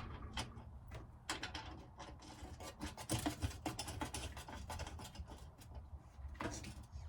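Irregular light clicks, scratches and rubbing from hand-fitting bolts, washers and nuts on a VW Beetle's rear bumper irons.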